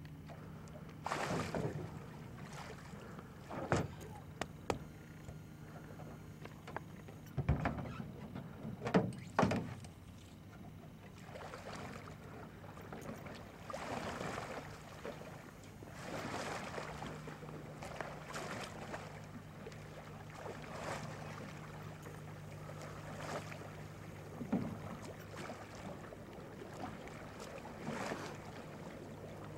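Double-bladed kayak paddle stroking the water beside a layout boat, with a swish and splash about every two seconds on alternating sides. Before that, in the first ten seconds, several sharp knocks against the boat.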